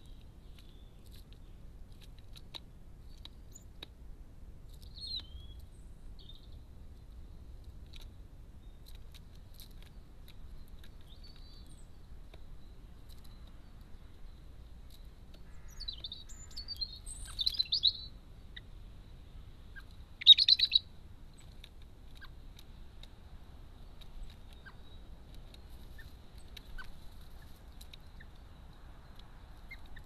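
Small birds chirping: a few faint high chirps early on, a louder run of chirps a little past halfway, and one short loud call about two-thirds of the way through.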